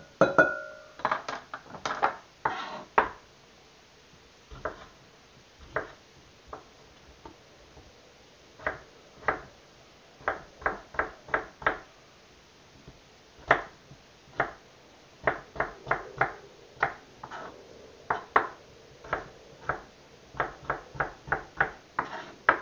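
Kitchen knife chopping potatoes on a wooden cutting board: sharp taps in irregular runs, several a second at times, with pauses between. A brief ringing clink at the very start as pieces go into a glass bowl.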